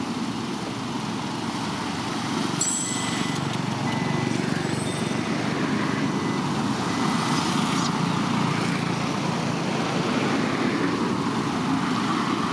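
Steady low rumbling noise, with a few short faint high squeaks about three and five seconds in.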